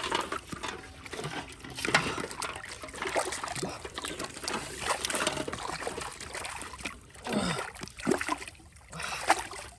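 Pond water splashing and trickling irregularly as fish are handled and pulled from the water.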